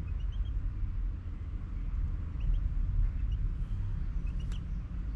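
Outdoor ambience of a steady low rumble, with a few faint, short, high-pitched bird chirps scattered through it and a single sharp click about four and a half seconds in.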